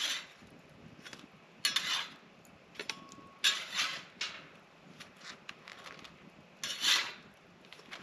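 Scraping and clinking of a metal cooking utensil on a campfire grill grate as food is lifted off, in three louder scrapes about two, three and a half, and seven seconds in, with small clicks between.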